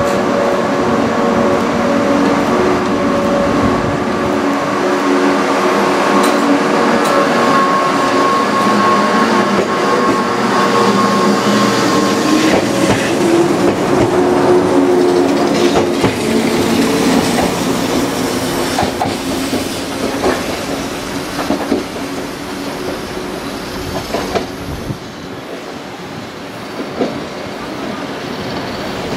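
Two-car KuMoYa 442/443 electric track-inspection train pulling out of a station. Steady humming tones give way to the motors picking up as it gathers speed, then the wheels clack over rail joints, fading as the train goes away.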